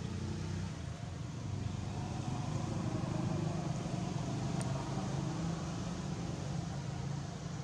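A motor vehicle's engine running steadily: a low rumble that swells a little around the middle.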